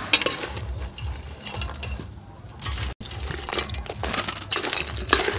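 Metal ladle clattering and scraping against a steel pot and tray as boiled crabs are scooped and stirred, the hard crab shells clicking and knocking together in a run of short sharp sounds.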